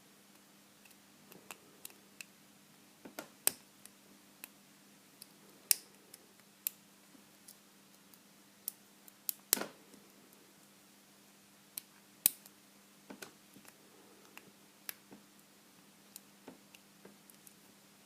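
Irregular small metal clicks and ticks of a lock pick and tension wrench working the pins inside a vintage Corbin pin tumbler padlock, a few clicks much sharper than the rest; the lock does not open.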